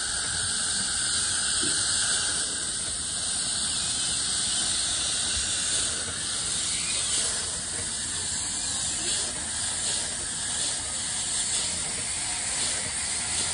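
High-speed dental air-turbine drill with water spray cutting the upper front teeth, a steady high hiss with a thin whine, mixed with the hiss of the suction tube drawing off the spray.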